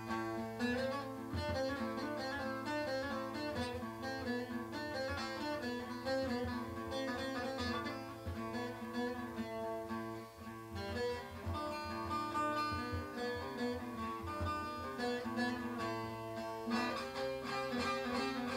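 Bağlama, the Turkish long-necked lute, played solo without singing: a run of quickly plucked melody notes over steadily ringing drone notes.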